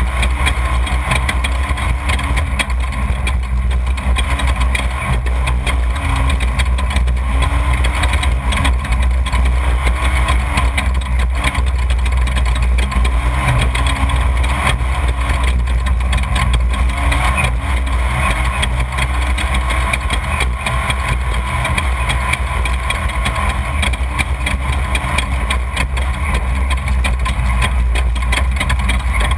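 Off-road desert race vehicle's engine running at idle, a steady low rumble whose pitch rises and falls slightly now and then.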